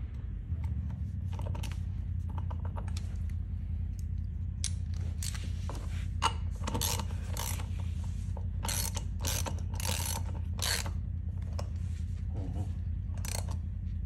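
Hand socket ratchet clicking in irregular runs as it is swung back and forth to run off a lug nut that has just been broken loose, over a steady low hum.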